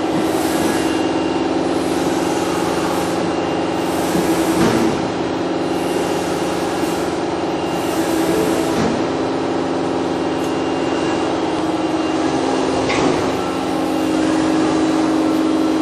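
Toshiba MPF-2114C bridge-mill spindle running steadily at about 5,000 RPM, a constant mechanical hum with a few brief swishes over it.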